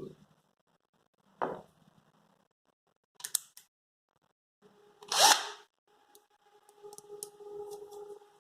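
Scattered clicks and knocks of small hardware and a power screwdriver being handled while a hinge is set up for screwing, with one louder clatter about five seconds in and a faint steady hum with light ticking near the end.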